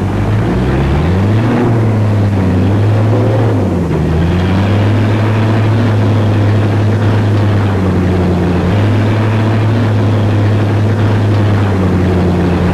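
A car's engine heard from inside the moving car, running with a steady low drone. Its pitch rises about a second in and dips briefly near four seconds, then it holds a steady pitch.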